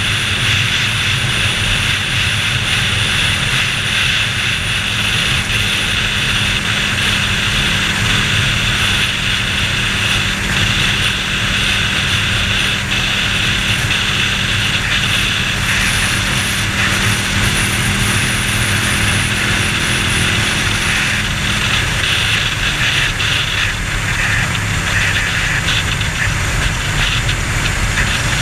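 Ducati Panigale 1299's V-twin engine running at a steady cruise, heard together with wind rushing over the camera. About three-quarters of the way through, the steady engine note changes.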